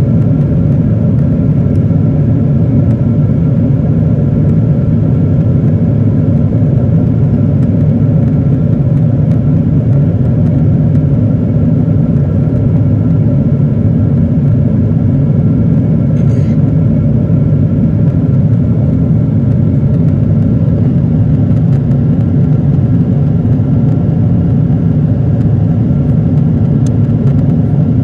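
Steady cabin noise of a Boeing 777-300ER in flight: a deep, even rumble of airflow and its GE90-115B turbofans, heard from a window seat beside the wing. A faint steady whine sits above the rumble.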